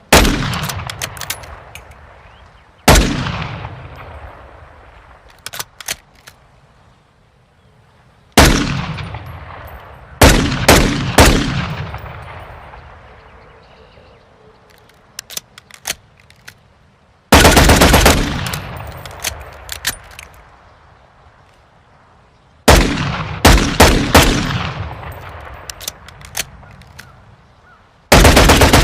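Desert Eagle pistol gunshot sound effects: single shots and quick strings of shots, some in rapid runs of a second or so, each followed by a long echoing decay.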